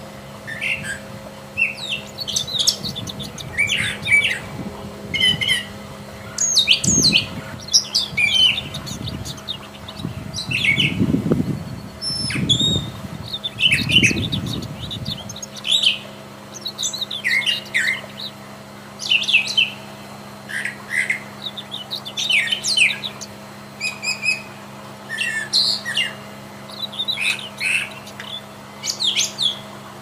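Brown thrasher singing: a long run of short, varied phrases, one after another with brief gaps. A low rumble sits under the song from about seven to fifteen seconds in.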